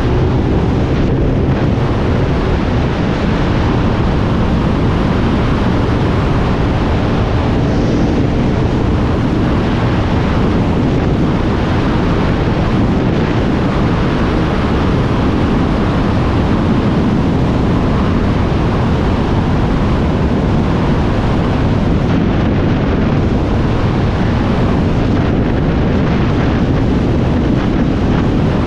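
Steady, loud wind rush over the microphone of a sport motorcycle cruising at highway speed, with the bike's engine running underneath.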